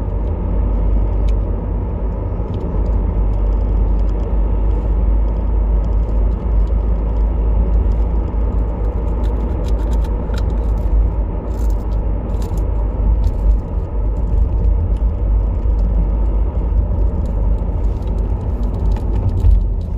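Steady road and engine rumble inside the cabin of a moving car, with a few faint clicks in the middle.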